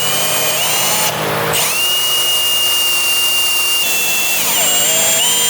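Power drill running, its motor whine shifting in pitch as the speed changes, with a brief stop about a second in.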